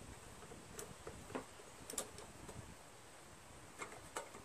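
A few faint, irregular metallic clicks as the Honda GCV160's carburetor and its Z-bend throttle linkage rods are twisted and worked loose by hand.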